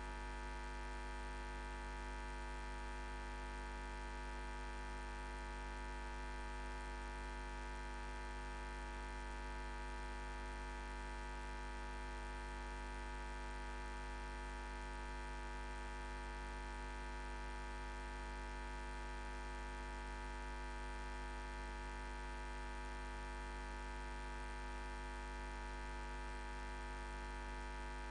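Steady low electrical hum with a faint hiss, unchanging, with no other sound: mains hum in the audio feed.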